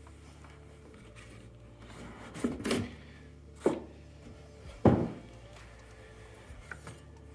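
Cardboard packaging and the base stand of a Starlink kit handled while unboxing: a few dull knocks and thumps, the loudest about five seconds in.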